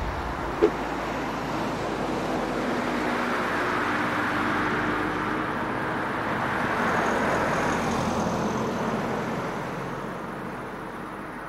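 Road vehicle passing out of sight: a steady road noise that swells to a peak about seven seconds in, then fades away. A single short click comes under a second in.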